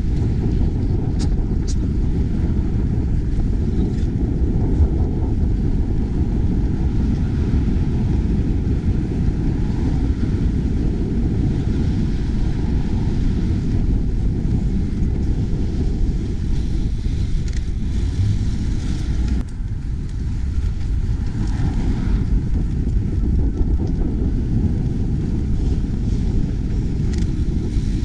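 Steady wind rumble on an action camera's microphone while cycling, with road traffic underneath.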